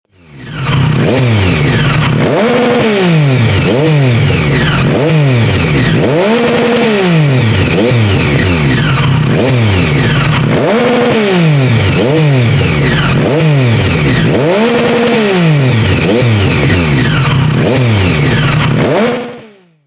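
Triumph Tiger 1050 Sport's inline-three engine through a GRmoto X Series low-level aftermarket exhaust, revved over and over, the pitch rising and falling about once a second. It fades in at the start and fades out just before the end.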